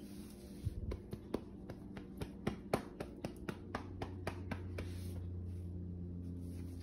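A quick, irregular run of sharp clicks on a tile floor from a dog's claws, about twenty in four seconds, which stop near the end. A low steady hum is left under them.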